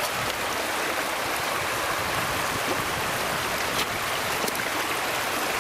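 Shallow creek water running steadily over rocks, an even rushing sound, with a couple of faint ticks about four seconds in.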